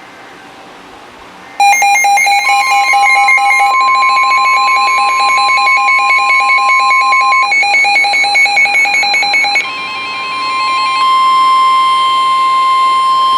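Weather radio alert: loud, rapid pulsed beeping from weather radio receivers starts about a second and a half in, over the steady 1050 Hz NOAA Weather Radio warning alarm tone, which drops out briefly midway. The tone signals an incoming severe thunderstorm warning.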